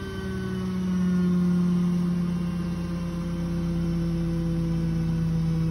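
Beko front-loading washing machine on its spin cycle: a steady motor and drum hum with a whine that falls slowly in pitch as the drum slows down.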